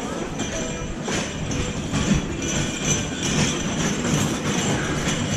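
Cutlery and china clinking and rattling: many short chinks of forks and knives on plates and dishes, over a steady low rumble.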